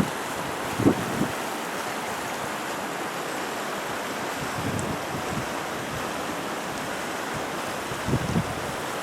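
Steady rushing noise of the typhoon-swollen Ota River's floodwater, with a few short low thumps about a second in and near the end.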